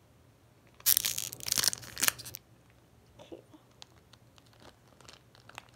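Foil wrapper of a hockey card pack torn open in one loud rip lasting about a second and a half, followed by light crinkling and soft ticks as the wrapper and cards are handled.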